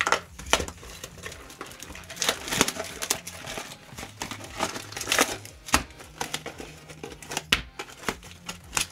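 Foil booster pack wrappers and plastic packaging crinkling in the hands, with many irregular crackles as the packs are handled and opened.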